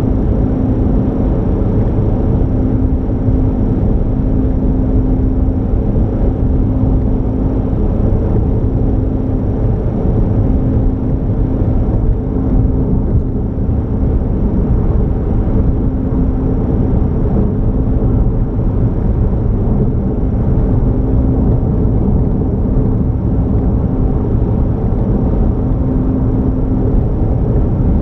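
A car driving at steady speed: a constant low road and engine rumble, with a droning hum that cuts out and comes back every few seconds.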